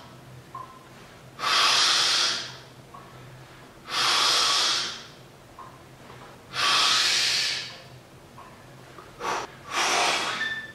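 A man breathing hard and forcefully, with a loud rushing breath about every two and a half seconds and two quicker breaths near the end, paced with the repetitions of heavy strict barbell curls.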